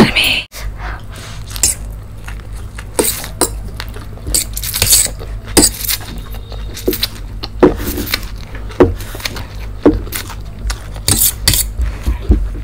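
Metal fork clinking and scraping against a stainless steel plate in irregular sharp clicks as noodles are scooped up, along with the sounds of noodles being eaten.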